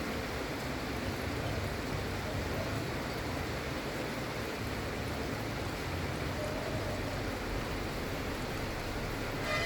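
Gentle, steady rain falling, an even hiss with no let-up. A short pitched tone sounds just before the end.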